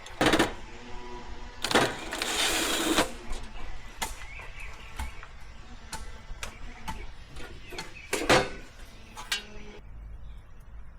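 Sharp metal clicks and knocks from working knockouts out of a steel electrical meter housing, with a rasping scrape about two seconds in.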